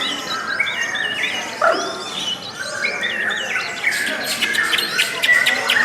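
Lovebirds chattering: a dense, continuous stream of short, high, overlapping chirps and squeaks.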